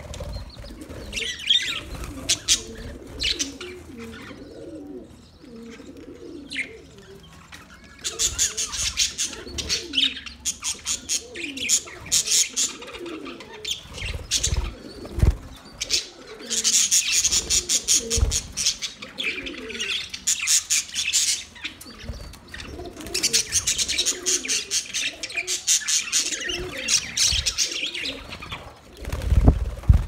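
A flock of budgerigars chattering in an aviary: dense runs of rapid, high chirps that come and go in stretches of several seconds. A lower, wavering cooing call recurs underneath, and there are a few low thumps.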